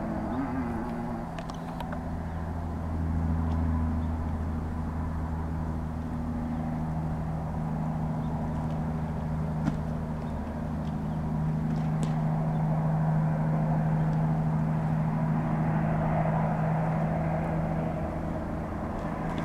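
A steady low engine hum, like a motor vehicle running, with a few faint clicks.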